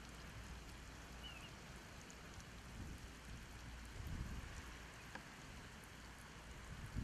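Water spraying in fine jets from a green emitter on a black irrigation hose, pattering faintly against a tree trunk and dry grass, with a low bump about four seconds in.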